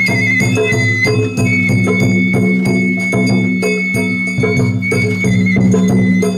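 Japanese festival hayashi music: a high bamboo flute holds long, slightly wavering notes over evenly repeated drum and small hand-gong strokes.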